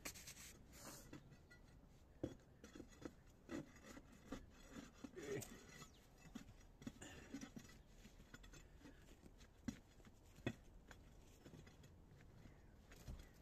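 Gloved hands scraping and brushing loose soil and grit across patio slabs: faint scuffs and scrapes with a few short sharp knocks.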